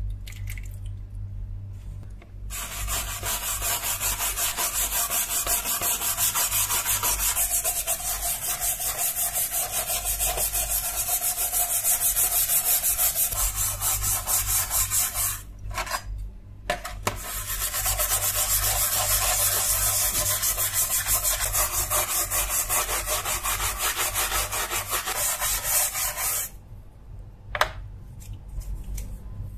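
A small hand brush scrubbing rust off a steel knife blade in a tray of liquid: fast, even back-and-forth strokes. It runs in two long spells with a pause of about two seconds between them.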